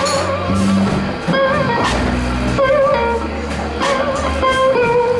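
Fender Stratocaster electric guitar playing a lead solo in a slow blues: held, bent notes with wide vibrato and quick runs between them. A bass guitar holds low notes and drums keep time behind it.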